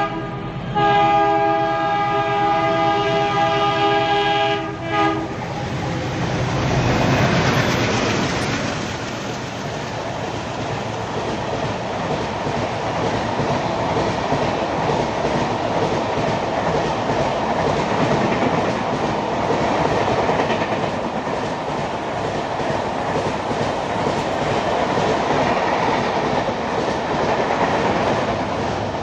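Diesel locomotive's air horn blowing as an express train approaches: a brief gap just after the start, then a second blast of about four seconds. About six seconds in, the locomotive runs through with a loud rumble, and the coaches rush past at speed for the rest of the time.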